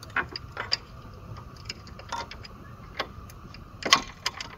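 Small metal clicks and clinks as a steel locking pin on a wire lanyard is handled and fitted into the steel ramp bracket of a hitch-mounted bike rack. The clicks are irregular, with a louder cluster about four seconds in.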